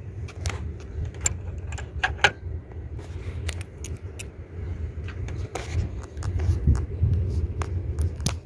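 Scattered metal clicks and clinks of hand tools and bolts, from work on the EGR valve of a Chrysler 3.3 V6, over a steady low rumble.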